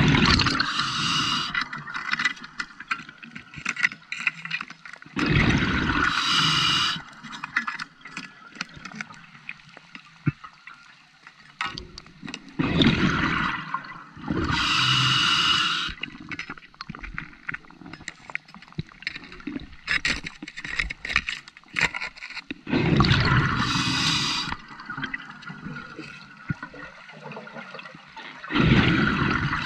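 Scuba diver breathing underwater through a regulator: about five breaths, each a hiss of inhaling and a gurgling rush of exhaled bubbles, with quieter gaps and faint clicks between.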